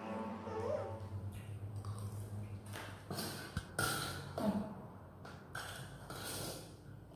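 Eating sounds close to the microphone: irregular crunching and chewing of crispy fried chicken, with several short noisy bites through the second half.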